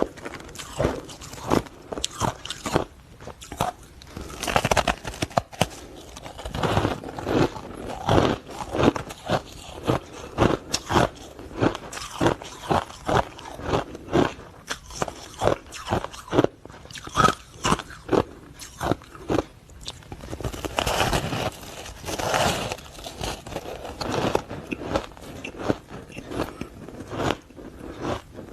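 Close-miked crunching of hard ice being bitten and chewed: irregular sharp cracks, several a second, with a few longer runs of grinding crunches.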